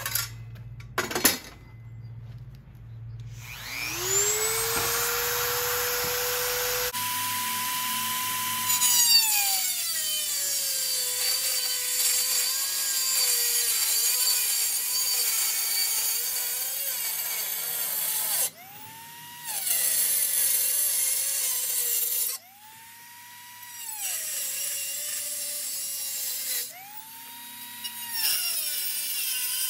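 Corded Dremel rotary tool cutting and grinding a notch in a sheet-metal exhaust shield. The motor whines up to speed and its pitch sags each time the bit bites into the metal. It stops and starts again several times.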